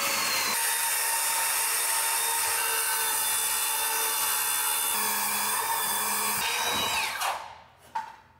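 Makita circular saw cutting lengthwise along a Sitka spruce mast stave, a loud steady whine. About seven seconds in the blade winds down with a falling pitch, and a single knock follows as the saw is lifted off.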